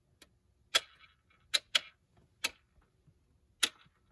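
Sharp clicks of hard plastic, about six at uneven intervals, as the toy dinosaur egg's shell and latch are worked by hand to try to release it.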